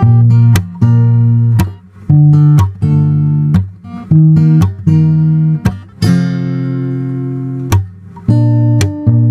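Background music: acoustic guitar playing plucked notes and strummed chords, one chord left ringing for nearly two seconds past the middle.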